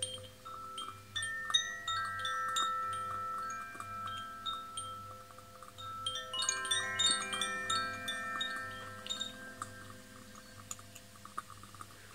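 Chimes ringing: many struck metal tones overlap and sustain, with a fuller flurry of strikes about six seconds in, dying down toward the end.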